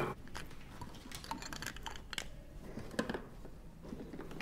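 Light clicks, taps and knocks of small objects being handled and set down, scattered irregularly, with a sharper click right at the start.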